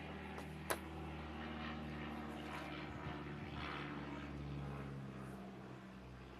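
Steady low drone of a distant engine, easing off a little after about five seconds. One sharp click sounds about a second in.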